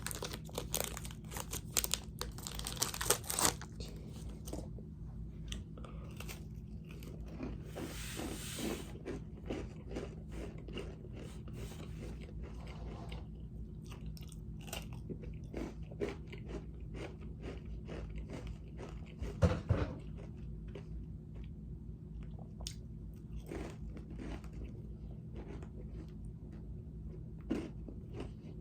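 Chewing a crunchy chocolate-dipped granola square: sharp crunching bites in the first few seconds, then steady chewing with smaller crunches and a louder crunch around the middle, over a faint steady low hum.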